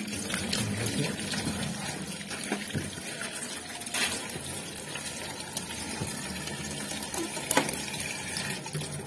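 Tap water running through a hose and splashing as a turtle is rinsed by hand, with a couple of brief sharp knocks about four and seven and a half seconds in.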